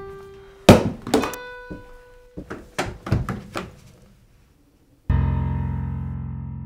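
Suspense film score: held piano notes punctuated by several sharp, loud thumps, a brief silence, then a sudden deep sustained chord that slowly fades.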